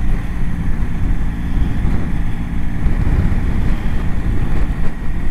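Adventure motorcycle ridden at low road speed, its engine running steadily with wind noise on the helmet-mounted microphone.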